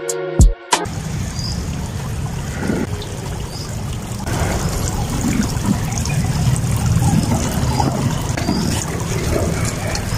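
Water from a two-tiered garden fountain trickling and splashing from its bowls into the basin. The sound is steady and grows louder about four seconds in. Music with a beat plays briefly before cutting off under a second in.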